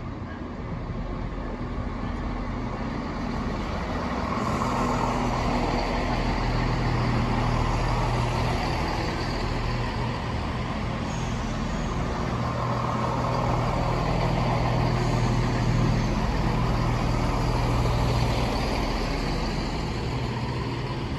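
CrossCountry Class 170 Turbostar diesel multiple unit running along the platform, its underfloor diesel engines humming steadily with wheel and rail noise. It grows louder as the train comes alongside and eases a little near the end as the last coach passes.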